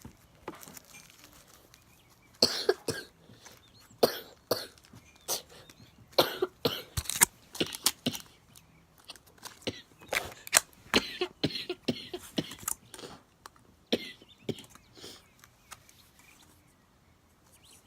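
Purple floam slime being squeezed and stretched by hand, giving off irregular sharp pops and clicks that come thickest through the middle and thin out near the end.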